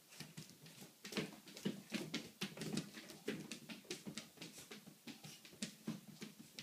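A Bengal cat's paws and claws scrabbling and tapping on a ceramic tile floor as she spins and pounces after a laser dot: a rapid, irregular run of light taps and clicks, busiest from about a second in.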